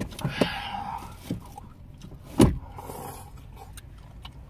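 Eating sounds from a bowl of soup: a slurp of broth near the start and small clicks of chopsticks and a plastic takeout bowl. About two and a half seconds in comes a single sharp knock, the loudest sound.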